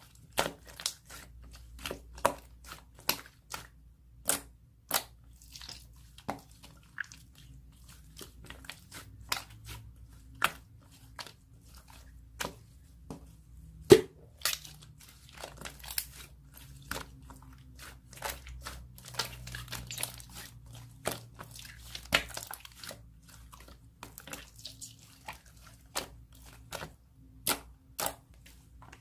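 Milky slime being squeezed and pressed by hand, giving sharp irregular clicking pops, one or two a second, with soft crackling and squishing between them and one louder pop about halfway through.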